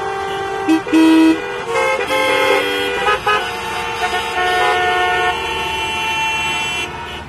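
Many car horns honking at once in traffic: overlapping steady blasts at different pitches, starting and stopping on top of one another, with one loud low horn about a second in. The honking thins out near the end.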